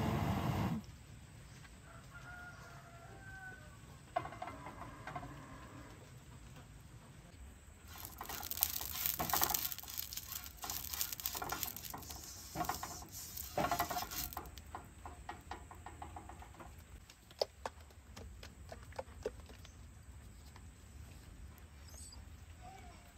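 Silicone spatula scraping and stirring dry flour in a nonstick frying pan, in bursts for several seconds in the middle, followed by scattered light clicks. A chicken clucks faintly now and then, and a loud rushing noise cuts off suddenly about a second in.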